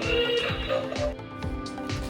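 Electronic music with a steady beat of about three thumps a second under sustained tones.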